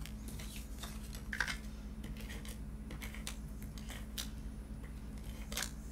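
Scattered light clicks and short scraping strokes as cardstock is handled on a craft mat and a tape runner is drawn across the back of a cardstock panel to lay adhesive. A steady low hum sits underneath.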